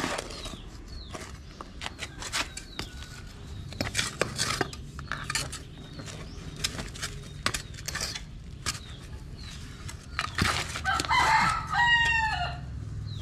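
A rooster crows once near the end, the loudest sound here. Before that there are scattered sharp clicks and knocks.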